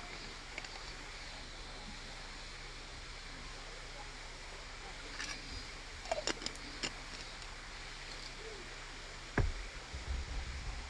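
Steady outdoor background hiss with a few light clicks about halfway through and a dull thump near the end.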